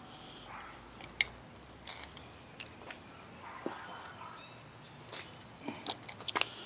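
Scattered light clicks and taps of small parts being handled, a sharp one about a second in and a quick run of them near the end, as screws are driven back into a stove knob assembly. Faint bird-like chirps sound in the background.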